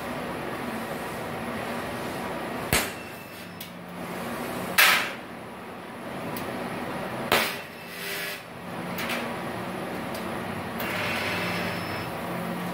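Single-sided spot-welding gun of a thyristor spot welder firing against thin steel sheet: three sharp snaps about two to two and a half seconds apart, starting about three seconds in, with smaller clicks between. A steady hum from the running welder and its water cooler lies underneath.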